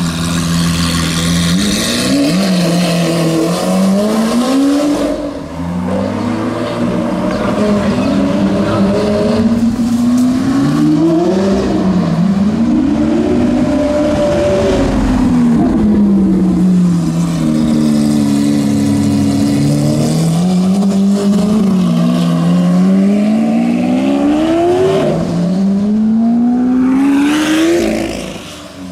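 Lamborghini Aventador SV's V12, breathing through a Capristo straight-pipe exhaust, revving and accelerating hard, its pitch climbing and dropping in many repeated sweeps through the gears. Near the end a car passes close, sweeping sharply up and then falling away.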